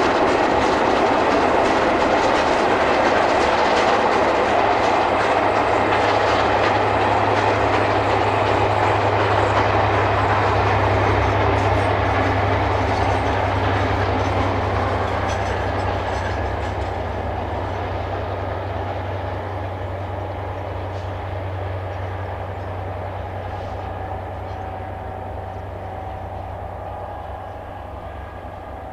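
LNER A4 Pacific steam locomotive, a three-cylinder streamliner, working a train of coaches past: a steady loud rush of exhaust and wheels on the rails, with some clickety-clack, that slowly fades over the second half as the train draws away.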